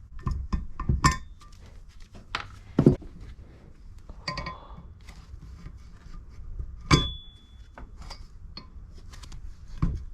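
Metal hand tools clinking and knocking against a Kawasaki KZ400 cylinder head while the old valve stem seals are pulled out: a string of separate sharp metallic clinks and knocks, a few ringing briefly.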